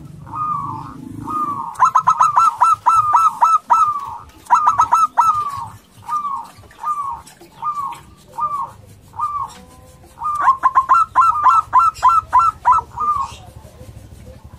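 Male zebra dove (perkutut) calling: a run of rolling coos about a second apart, broken twice by quick bursts of rapid staccato notes, the first about two seconds in and the second about ten seconds in. It is the loud, aggressive call of a male challenging rivals.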